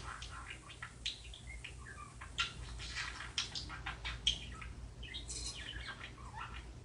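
Birds chirping in quick, irregular short calls, a few of them sliding down in pitch, over a steady low hum.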